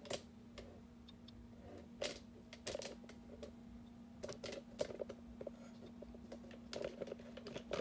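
Scattered light clicks and taps of handling as a hand-held spring scale, hooked by a line to an air pistol's trigger, is held and positioned. A faint steady hum lies underneath.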